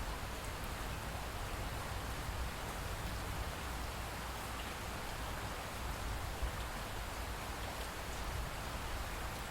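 Steady rain falling: an even hiss with a low rumble underneath, and one brief louder tap about six and a half seconds in.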